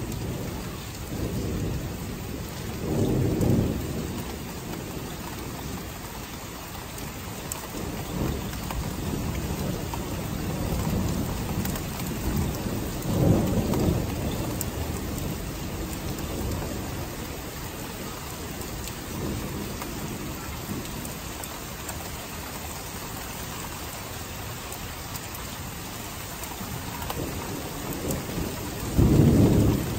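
Thunder rolling over steady rain. There are low rumbles about three seconds in and again about thirteen seconds in, and a louder roll begins near the end.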